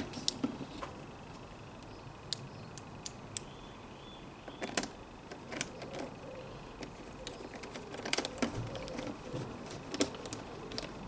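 Small screwdriver fastening a plastic access cover onto a generator's plastic casing: scattered irregular clicks and ticks of the tool on the screws and the panel, busiest near the end.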